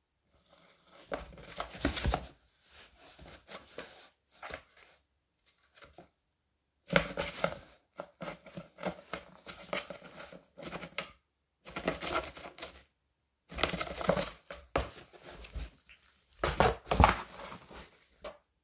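A cat moving about inside a cardboard box, its body and claws scraping and rustling against the cardboard walls. The sound comes in several irregular bursts of a few seconds each, with short silent pauses between.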